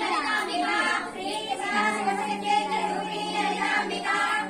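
Several female and child voices singing a devotional song during the lamp-waving aarti of a puja, with a steady low note held under the singing for a couple of seconds in the middle.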